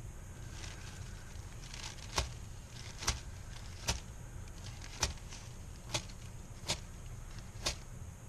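Ferro spark wheel of a Firebiner carabiner multitool being struck repeatedly against its flint: a few faint scrapes at first, then about seven sharp strikes roughly a second apart. The sparks are thrown onto tissue paper tinder that does not catch.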